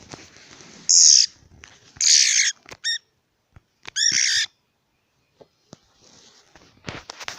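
A freshly trapped songbird, held in the hand, giving loud, harsh distress squawks: calls at about one, two and four seconds in, with a short shrill note between them. Handling rustles and clicks follow near the end.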